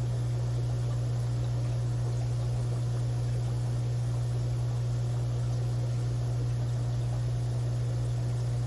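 Aquarium pump motor humming steadily at a low, even pitch, with a faint hiss of moving water.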